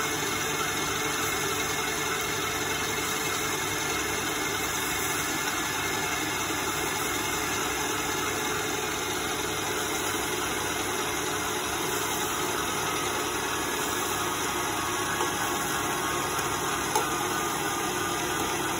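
Electric stand mixer running steadily, its wire whisk beating egg whites in a stainless steel bowl as sugar is added, whipping them toward a stiff meringue. A couple of faint clicks come near the end.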